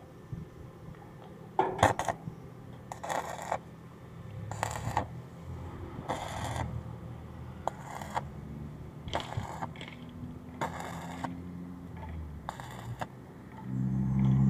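Stick arc welder crackling in about eight short bursts, each under a second, as tack welds are struck on the steel gate frame. Near the end a low engine rumble rises and grows loud.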